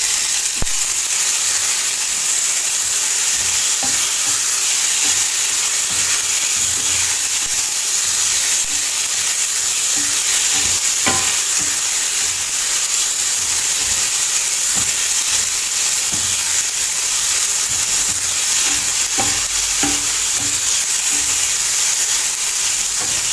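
Tomatoes, onion and garlic sizzling steadily in hot oil in a stainless steel frying pan, stirred with a slotted spatula that scrapes and knocks against the pan now and then.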